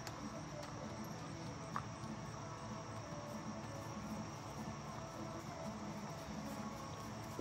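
Crickets chirping in a steady, high chorus.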